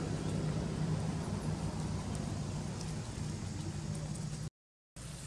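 Steady low hum of an engine running, with a brief drop to silence about four and a half seconds in.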